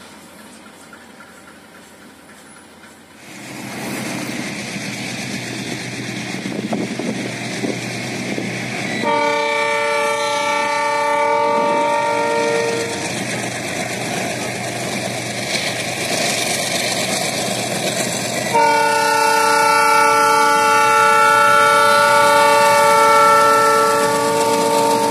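Diesel freight locomotive's multi-tone air horn sounding two long blasts, the first about nine seconds in and lasting about four seconds, the second starting around eighteen seconds and held to the end. Under the horn is the running noise of the approaching train, which grows louder about three seconds in.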